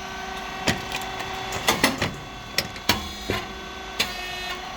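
SYP5804T rice cake machine running: a steady hum with a string of irregular sharp clicks and knocks, about eight of them.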